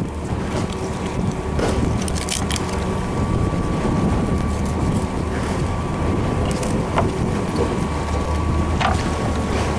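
A boat's motor running steadily under way, with wind buffeting the microphone. A thin steady whine runs through it, and a few light knocks come and go.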